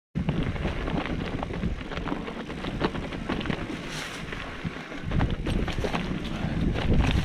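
Mountain bike rolling along a rocky singletrack covered in dry leaves: tyres on stones and leaf litter with many small clicks and rattles, over wind rumbling on the microphone that grows stronger near the end.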